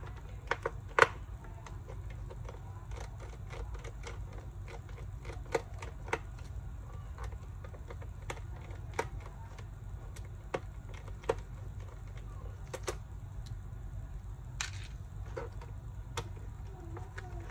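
Scattered small clicks and taps from a screwdriver and tiny screws as the laptop case screws are taken out and handled. A steady low hum runs underneath.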